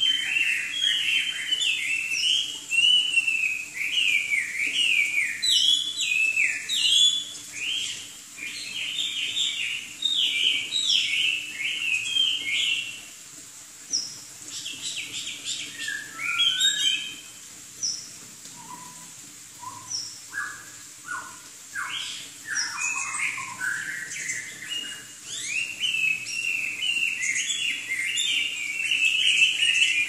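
Chinese hwamei (Garrulax canorus) singing: a rapid, varied stream of slurred whistled phrases. It thins to scattered single notes for several seconds in the middle, then resumes at full pace.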